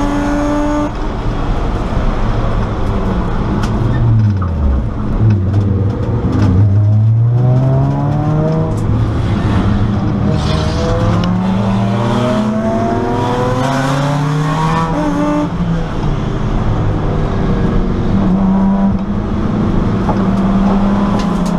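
Race car engine heard from inside its stripped cabin, running hard on track. Its pitch drops about four to five seconds in, then climbs for several seconds, with a few short clicks and knocks along the way.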